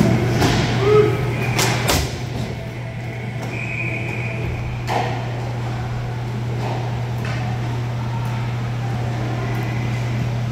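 Inline hockey play in an indoor rink: skate wheels and sticks on the plastic sport-court floor over a steady low hum. There is a sharp crack of stick or puck about two seconds in, a short high squeak around three and a half seconds, and another knock about five seconds in.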